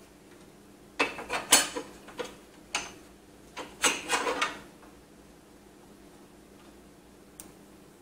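Thin metal bracket clinking and knocking against a steel PC case as it is pushed into place by hand: a quick run of sharp metallic clicks for about three and a half seconds, starting about a second in, then a single faint tick near the end.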